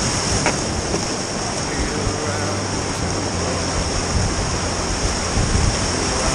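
Whitewater of a river rapid rushing and churning close around a pack raft, a steady loud rush of water.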